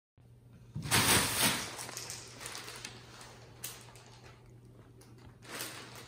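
Clear plastic bag crinkling and rustling as a cat paws at it and climbs onto it, in irregular bursts. The rustling is loudest about a second in and picks up again near the end.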